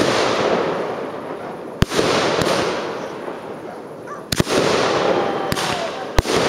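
Fireworks display: aerial shells bursting with about six sharp bangs, spaced unevenly, each followed by a dense crackling rumble that slowly fades.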